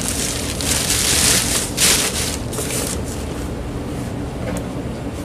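Plastic packing material crinkling and rustling as it is handled, in bursts through the first three seconds, then dying down, over a steady low hum.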